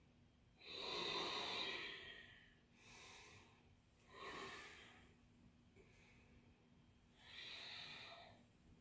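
A woman breathing deeply in time with squatting arm swings: about four long breaths, the first, about a second in, the loudest.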